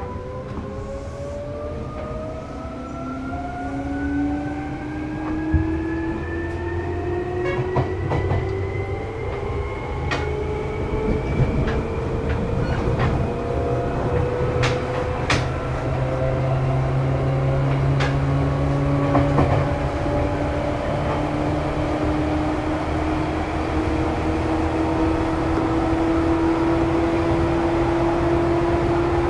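Seibu 2000 series electric train under way. Its motor whine rises steadily in pitch as the train gathers speed, then settles toward the end, over a running rumble with a few sharp clicks.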